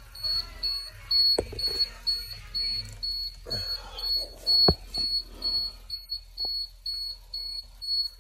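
School bus dashboard warning buzzer beeping steadily with the ignition on and the engine not yet started, a high-pitched beep about two and a half times a second. A few knocks sound over it, the sharpest about four and a half seconds in.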